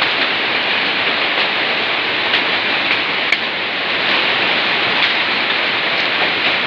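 Heavy rain with hail: a loud, steady downpour hiss with scattered sharp ticks of hailstones striking, a few each second or two.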